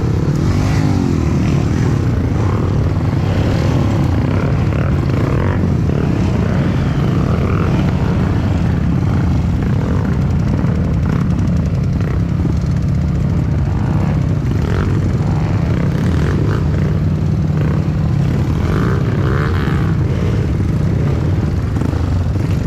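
Dirt bike engine running steadily, its pitch wavering slightly as the revs shift.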